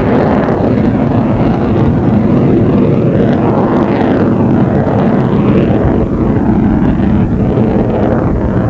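F-14B Tomcat's twin General Electric F110 turbofans running: loud, steady jet noise whose hiss sweeps slowly up and down in places.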